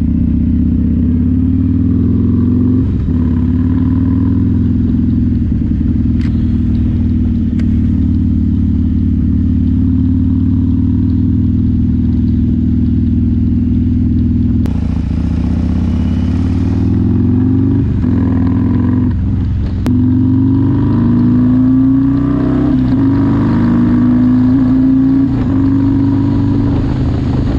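Harley-Davidson Milwaukee-Eight V-twin with an S&S 475 cam, running through a Bassani mid-length 2-into-1 exhaust while under way. In the second half the revs climb and drop several times as it pulls through the gears.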